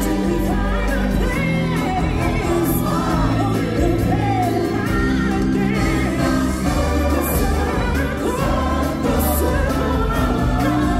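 Music with a choir and solo voices singing over held bass notes.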